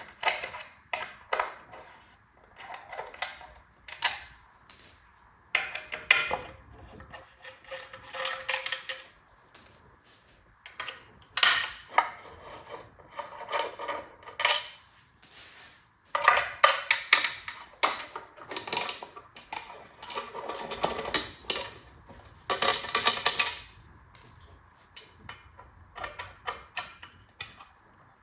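Hand tools and metal engine parts clinking, clanking and rattling as the top end of a Ford 5.0 V8 is taken apart: irregular knocks and clusters of quick clicks, with a short metallic ring about six seconds in.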